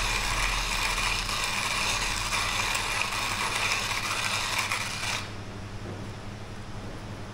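Timemore hand coffee grinder crushing coffee beans as its crank is turned, a continuous gritty crunching that stops abruptly about five seconds in.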